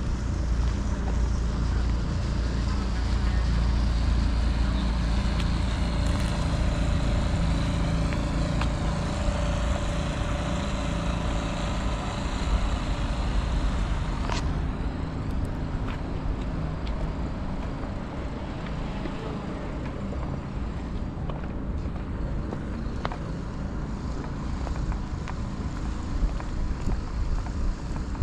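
City traffic going by: a heavy vehicle rumbles past with a steady whine that dies away about halfway through, leaving a quieter hum of traffic.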